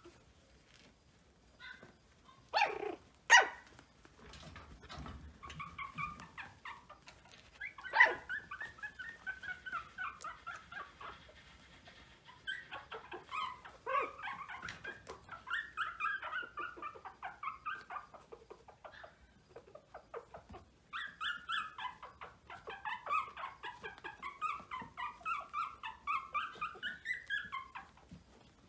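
Young Maltese puppies whining and squeaking in long runs of quick, high-pitched cries that come in several stretches. A few sharp, loud sounds stand out about three seconds in and again around eight seconds.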